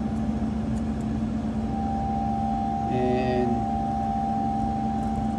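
Open-case display refrigerator running: a steady hum from its air-curtain fans and refrigeration machinery, with a second, higher steady tone joining about two seconds in.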